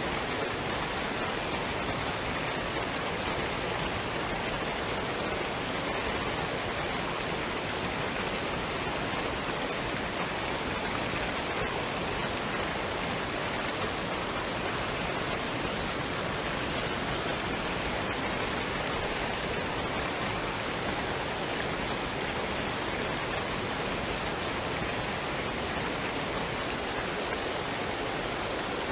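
Waterfall and stream: a steady, unbroken rush of falling and running water.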